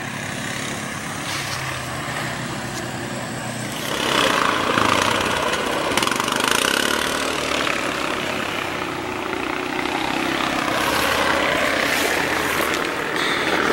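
All-terrain vehicle engines running as ATVs pass close by, a steady hum that gets louder about four seconds in.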